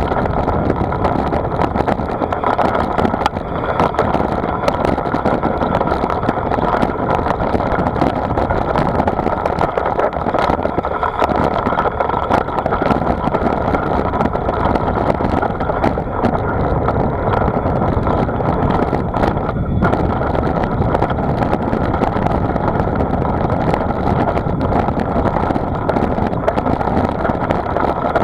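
Steady running noise of a vehicle travelling at speed, recorded by an onboard camera, with wind rushing over the microphone.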